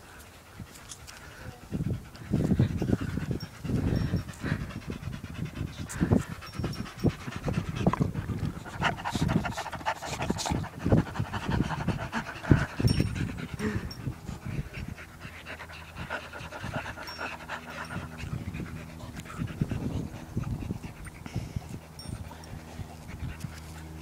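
A boxer panting in quick, repeated breaths, out of breath from play.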